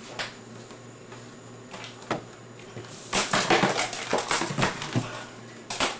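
Objects being handled on a floor: scattered light knocks, clatter and rustling, busiest in a run of knocks from about halfway through to near the end.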